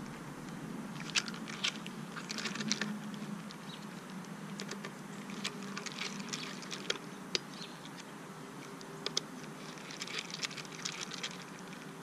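T8 Torx screwdriver turning out the small screws of the Time Capsule's drive-holding plate: irregular small clicks and scrapes of the bit in the screw heads, over a faint steady hum.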